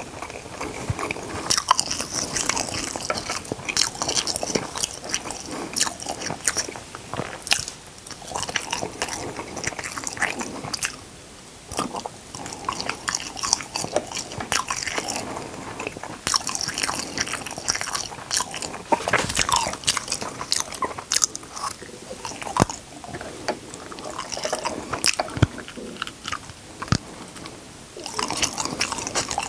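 Close-miked eating: biting, crunching and chewing food, with many sharp crackles in an irregular run and a couple of short pauses.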